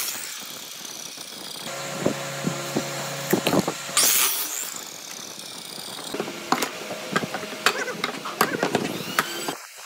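Electric miter saw running and crosscutting through a bundle of wooden strips, loudest at the cut about four seconds in, its blade's whine falling away afterwards. Sharp knocks and clicks of the wood being handled come in between.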